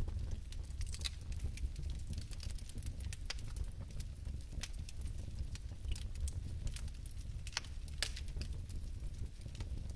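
Fireplace fire crackling: sharp, irregular crackles over a steady low rumble, with two louder pops about eight seconds in.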